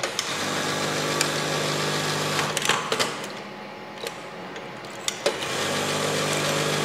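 Industrial buttonhole sewing machine running a buttonhole stitching cycle: a steady, even hum for about two and a half seconds, then a few sharp clacks of the mechanism and a quieter pause with single clicks. A second run starts about five seconds in.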